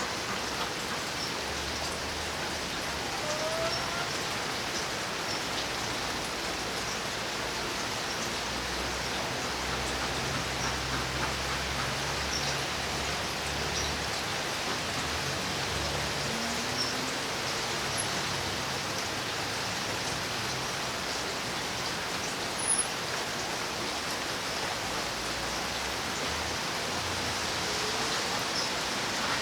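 Steady rain falling, an even continuous hiss of many drops.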